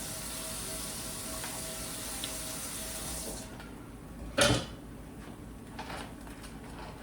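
Kitchen sounds: a steady hiss that cuts off suddenly about three and a half seconds in, then a loud clatter of cookware and a lighter knock about a second and a half later.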